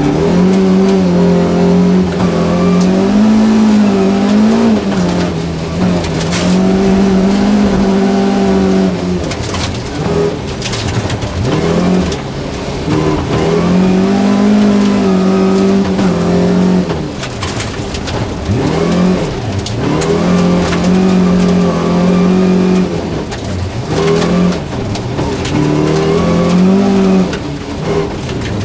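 Volvo 240 rally car's engine driven hard on a gravel stage, heard from inside the cabin. It holds high revs, drops sharply several times at gear changes and lifts, then climbs again, with gravel clattering against the car.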